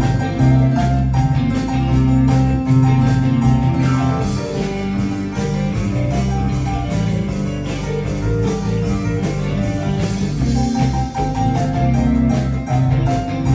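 Live rock band playing an instrumental passage: held bass notes, a bright ringing melodic line and drums. The drum hits thin out in the middle and come back strongly near the end.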